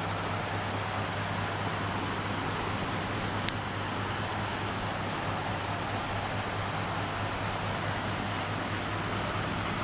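Steady low hum under an even background hiss, like machinery or ventilation running, with one sharp click about three and a half seconds in.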